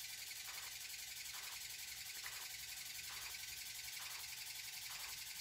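Faint steady hiss of room tone and recording noise, with a soft pulse repeating a little more than once a second.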